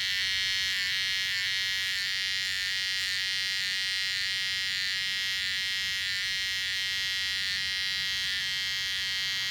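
Gamma+ Absolute Hitter hair trimmer running steadily, an even high-pitched buzz.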